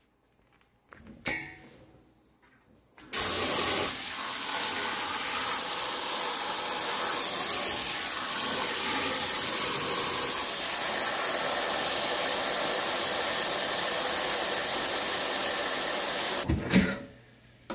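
Tap water running in a steady stream into a stainless steel bowl of water and leafy greens being rinsed. It starts about three seconds in and stops shortly before the end.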